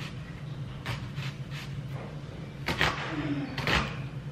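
Kitchen knife cutting an onion on a plastic cutting board: about half a dozen short, irregularly spaced knocks of the blade on the board, over a low steady hum.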